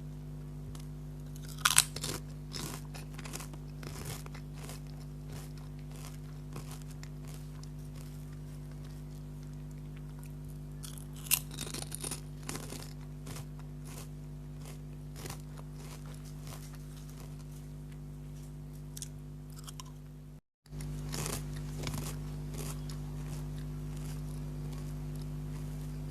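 Lay's potato chips bitten and chewed close to the microphone: a sharp crunching bite about two seconds in and another about eleven seconds in, each followed by a run of smaller crunches as the chips are chewed.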